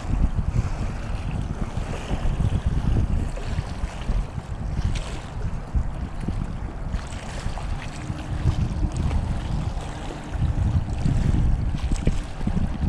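Strong wind buffeting the microphone in uneven gusts, over choppy pond water lapping at the bank.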